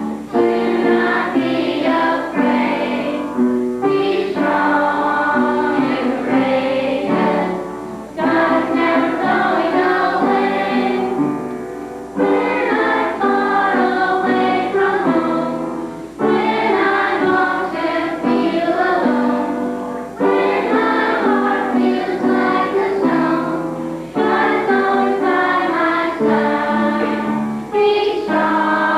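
A group of children singing a song together, in phrases of about four seconds with a short breath between each.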